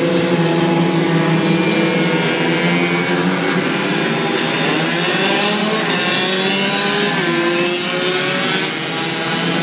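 A pack of racing mopeds' small engines revving as they lap the track, several engine notes rising and falling over one another.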